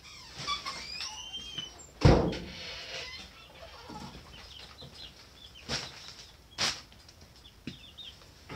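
Four-week-old chicks peeping in short sliding calls, with a chick's wings flapping as it flutters up out of a cardboard box. A loud thump comes about two seconds in, and two sharp knocks follow later.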